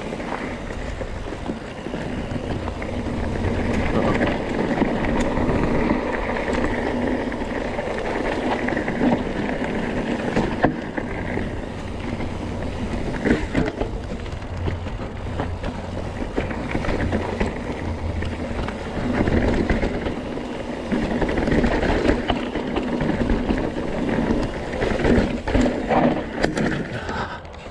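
Mountain trail bike descending rough singletrack: tyres rumbling over rocks and roots, with the bike rattling and clattering and wind buffeting the microphone. It grows louder and busier twice, a few seconds in and again in the last third.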